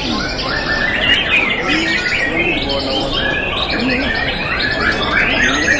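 Young white-rumped shamas (murai batu) singing in competition, many birds at once: a dense, continuous tangle of overlapping whistled phrases and trills gliding up and down.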